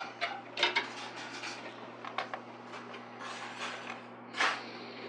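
Scattered clicks, taps and rattles of small plastic and metal computer parts being handled during a PC build, over a steady low hum.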